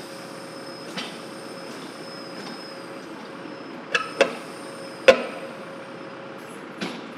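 Five sharp, ringing knocks and clanks from tire and wheel work, the loudest about five seconds in, over a steady hum with a thin high whine.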